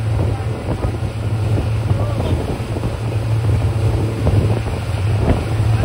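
A motorboat's engine running steadily, a low even hum, with wind buffeting the microphone.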